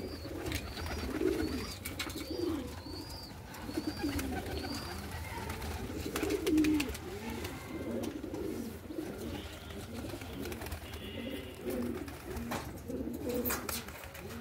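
A flock of domestic pigeons cooing, many low coos overlapping without a break. A thin high chirp repeats a little more than once a second over the first five seconds, and a few sharp clicks come near the end.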